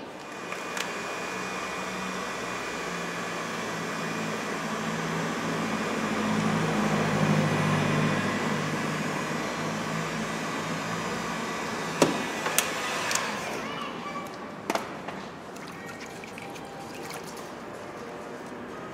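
Heat gun blowing steadily on the plastic bumper to soften a small bump so it can be pushed out from behind. It cuts off after about fourteen seconds, with a few sharp clicks just before.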